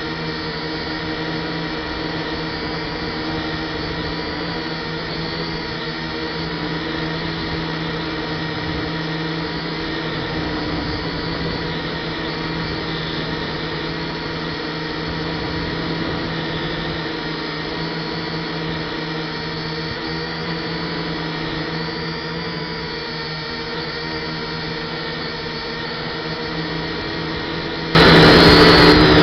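Steady motor-and-propeller whine of an F183DH quadcopter, heard from its own onboard camera. Near the end it turns suddenly louder and harsher.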